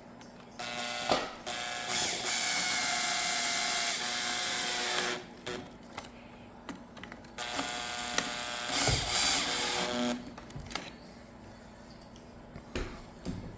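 Power drill driving screws: the motor runs twice, once for about four and a half seconds and once for about three, its pitch dropping as each run stops, with a few knocks of the tool against the part in between.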